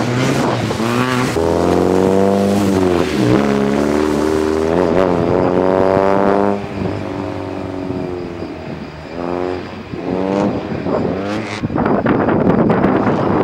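Stock 1990 Mazda Miata's 1.6-litre four-cylinder engine revving up and down as the car slides around on wet blacktop, fading and then revving again about two-thirds through. Wind buffets the microphone near the start and end.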